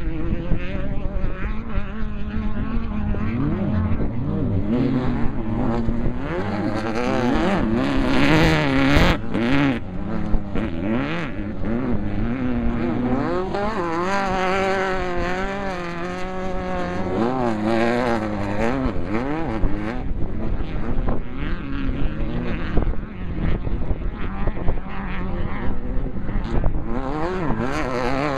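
Off-road desert race vehicle engines revving hard, their pitch rising and falling again and again as they run and pass.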